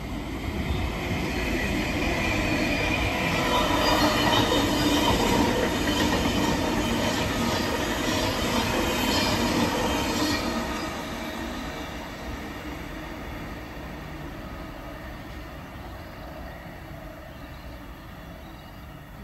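Sydney double-deck electric train passing and running away along the line, its wheels squealing with steady high tones. It is loudest in the middle and fades away over the last several seconds.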